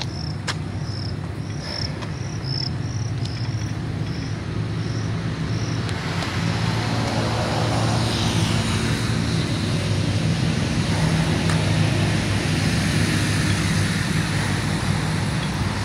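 Steady rumble of wind and road noise while riding a mountain bike on a paved path, growing a little louder after the middle. A high, short chirp repeats about twice a second in the first few seconds.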